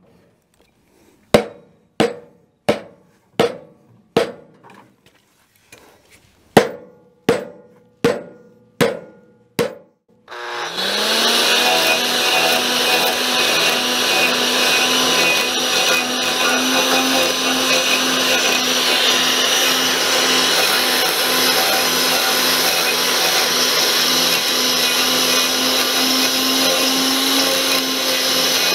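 An axe chopping into the side of a log about every 0.7 s, scoring it, for roughly a dozen strokes. About ten seconds in, an angle grinder fitted with a three-bladed 7-inch peeling disc starts, rising in pitch, then runs steadily as it carves hew marks into the log face.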